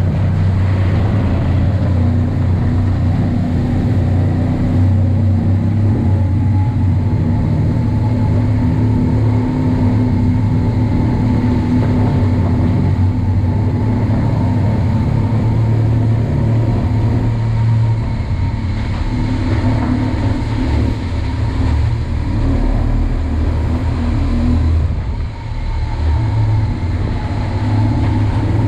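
Motor vehicle engine running steadily as the vehicle drives, a constant low hum with slight rises and falls in pitch; the level dips briefly near the end.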